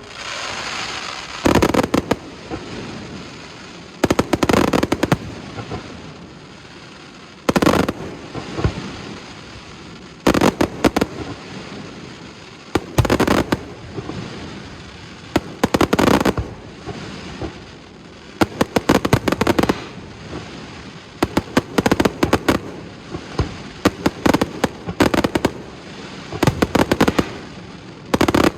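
Fireworks display: aerial shells bursting in clusters of sharp bangs and crackles about every two to three seconds, each cluster trailing off in a rolling echo.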